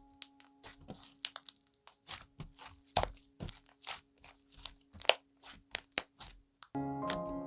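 Jellsis slime being pressed and worked by hand, giving off a run of sharp crackling pops, several a second, over soft background music that swells about a second before the end.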